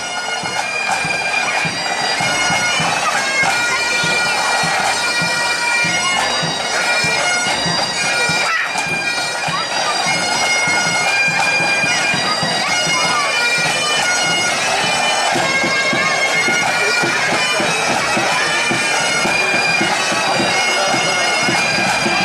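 Pipe band playing: Great Highland bagpipes sounding a marching tune over their steady drones, with snare and tenor drums beating in time.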